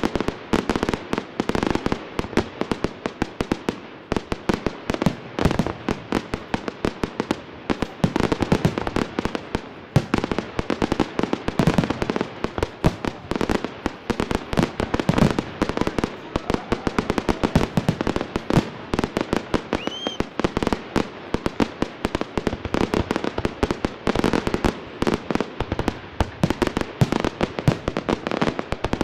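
Fireworks display in full barrage: aerial shells bursting in a dense, unbroken volley of bangs, several a second. A short rising whistle about twenty seconds in.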